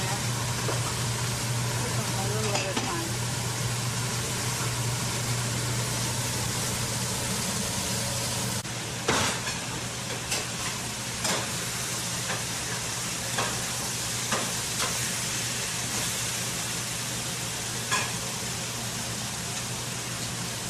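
Thin zucchini slices sizzling in hot oil in a pan, a steady frying hiss. After about eight and a half seconds the hiss changes and a series of sharp clicks comes about once a second.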